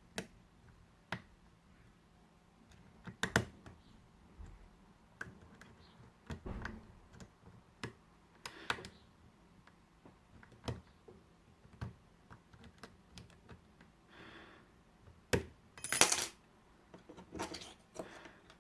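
Lock pick and tension wrench working in the keyway of a Squire SAL/40 padlock: scattered small metallic clicks and taps, with a louder rattle of clicks near the end.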